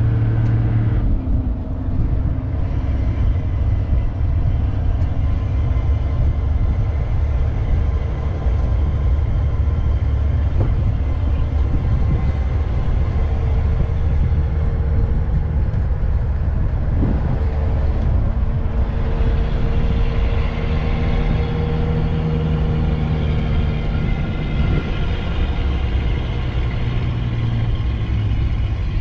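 Game-drive vehicle on the move: a steady low engine drone with road rumble, the engine note shifting a little now and then.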